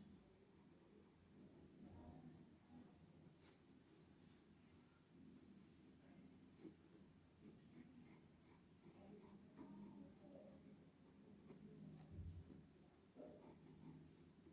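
Faint scratching of sketching strokes on paper, coming in quick runs of short strokes with brief pauses between them, over a faint steady room hum.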